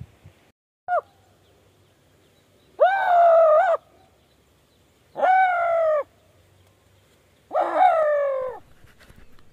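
Loud, shrill animal calls: a short cry about a second in, then three long cries of about a second each, each sliding slightly down in pitch.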